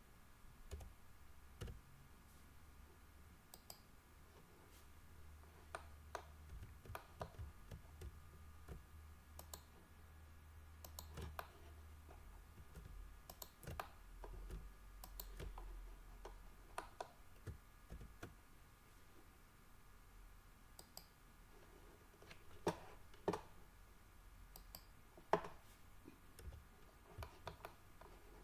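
Faint, scattered clicks of a computer mouse and keyboard being worked at irregular intervals, a few sharper ones late on, over a faint low hum.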